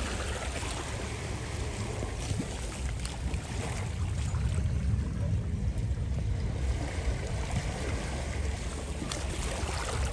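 Small sea waves washing steadily on a sandy beach, with a low, uneven rumble underneath.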